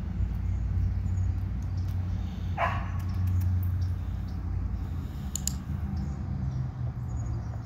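A dog barks once, a single short bark about two and a half seconds in, over a steady low rumble.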